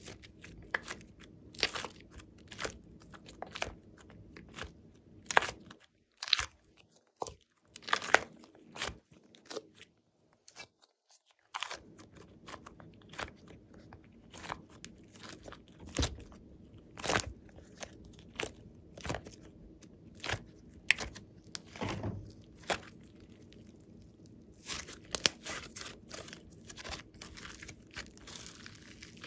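Hands kneading and squeezing soft slime mixed with clay, giving irregular sticky clicks, pops and squelches, with a short quiet gap about a third of the way through.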